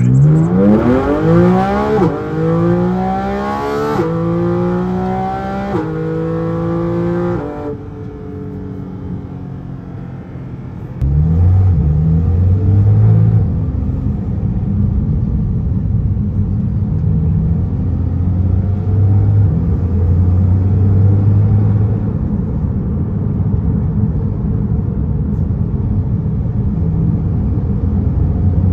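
Porsche 718 GT4RS flat-six with Dundon headers and catted wave pipes accelerating hard past, its pitch climbing and dropping back at several quick upshifts, then fading away. About eleven seconds in, the same engine is heard from inside the cabin as a steady low drone while cruising in normal mode with the exhaust valves closed.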